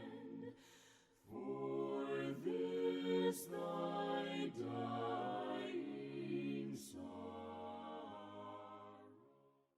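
Several voices singing a hymn a cappella in harmony, in held notes that change chord every second or so. There is a short pause for breath about a second in, and the last note fades out near the end.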